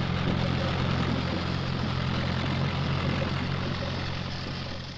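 Farm machinery running: a steady, low engine hum that holds one pitch, fading away near the end.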